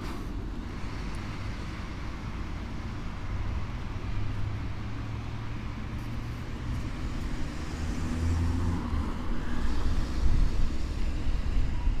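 Street traffic and a low rumble picked up from a moving bicycle on a city street, steady at first and louder from about ten seconds in.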